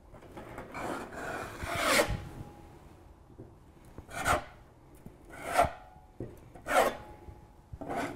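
Metal putty knife scraping along a freshly filled seam at the tub edge of foam backer board. There is one longer stroke in the first two seconds, then short separate strokes about every second and a quarter.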